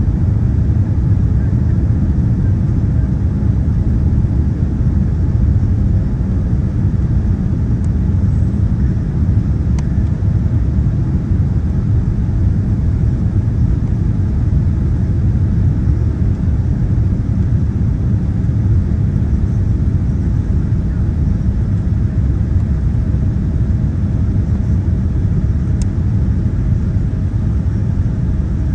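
Steady low rumble of engine and airflow noise inside the cabin of a Boeing 787 on night approach, with a faint steady hum.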